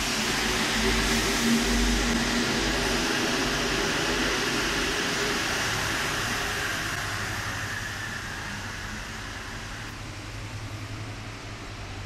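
Rubber-tyred driverless Paris Metro Line 1 train pulling out of the platform, its running noise and motor whine fading steadily away over about ten seconds. A steady low hum is left at the end.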